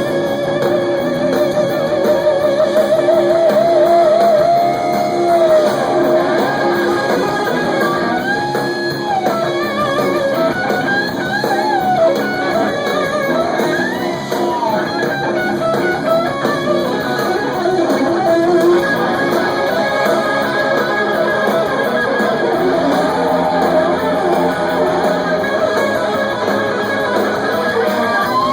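Live rock band with an electric guitar playing a lead solo, its notes held with wide vibrato and bent up and down in pitch over the rhythm section.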